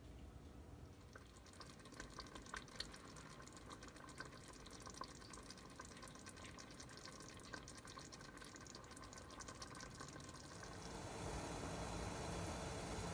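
Pot of water heating toward a boil: faint scattered ticks and small pops, then a steadier hiss that gets louder near the end.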